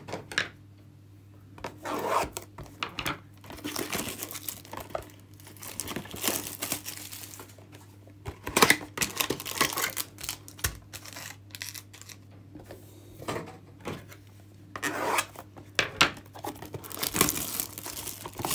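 Clear plastic wrapping being torn and crinkled off a trading card pack, with cards and cardboard handled in between: irregular bursts of rustling and tearing with small clicks.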